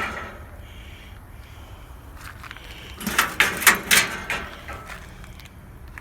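A few sharp knocks and scrapes, about three seconds in, as metal parts of an air conditioner being dismantled are handled.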